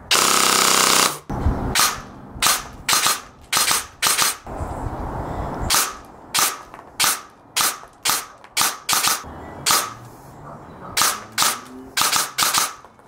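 Umbrella Armory ARP-9 airsoft electric gun with a DSG (dual sector gear) gearbox firing: a loud continuous full-auto burst about a second long, then a string of about twenty separate short shots at uneven spacing.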